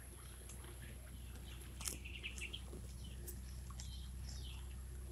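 Birds chirping: several short, high chirps, some falling in pitch, over a faint low steady hum.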